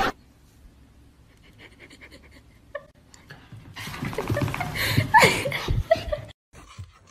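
Breathy laughter and panting, faint at first and louder from about four seconds in.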